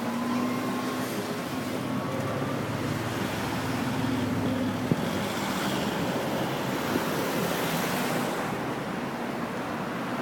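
Steady city street traffic noise: vehicle engines running and tyres on the road, with one brief sharp click about five seconds in.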